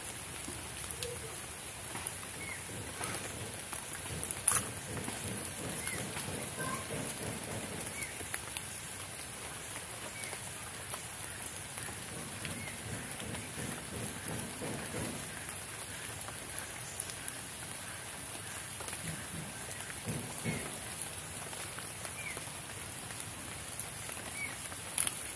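Steady rain falling on leaves and wet ground, with a constant high-pitched hiss and a faint short chirp every couple of seconds. At times leaves rustle as hands search through wet ground cover.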